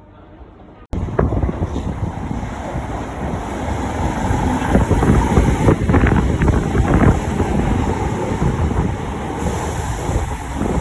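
Heavy wind buffeting on the microphone over the rumble of a passing electric train, starting abruptly about a second in.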